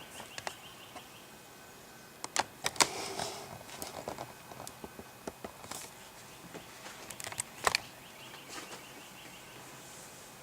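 Scattered clicks and knocks of footsteps and handling, the loudest about two to three seconds in and again near the three-quarter mark. A rapid chirping trill sounds faintly in the background at the start and again in the middle.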